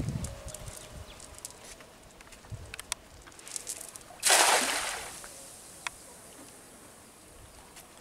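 A cast net, its weighted edge hitting the water, lands on the pond with a sudden splashing hiss about four seconds in, fading within a second. Before it come a few light clicks and rustles as the net is handled and swung.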